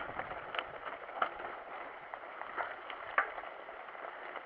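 Mountain bike rolling over a wet, muddy trail: a steady hiss of tyres on the ground with a few sharp clicks and rattles from the bike.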